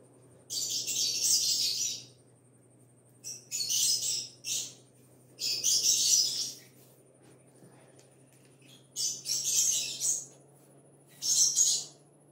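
Thin kite paper crinkling in five short bursts, each about a second long, as its edge is folded over the border string.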